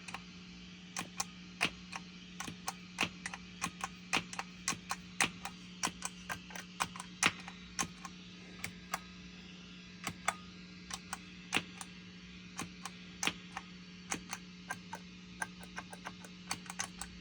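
Footswitches of a Moen GEC8 Jr pedal switcher pressed over and over, each press giving a sharp click and pop through the guitar amp, about two or three a second, over a steady amp hum. The pop at each preset change is the fault being tested: it persists with nothing plugged in but the output cable, despite the unit's pop-cancellation circuitry.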